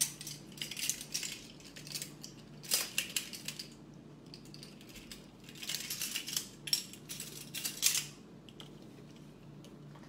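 Dried Italian seasoning shaken from a plastic shaker jar into a measuring spoon, with the ring of plastic measuring spoons clacking. It comes as three bouts of quick rattling and clicking, the longest about six seconds in.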